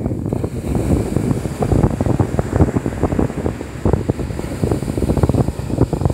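Wind buffeting the microphone in loud, uneven rumbling flutters, over the wash of small waves breaking on a sandy shore.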